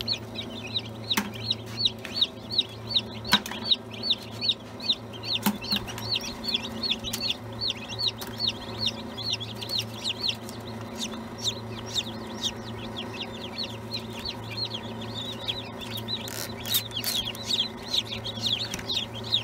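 Newly hatched chicks peeping constantly in an incubator, a dense run of rapid, high, short peeps, several a second, over a steady low hum.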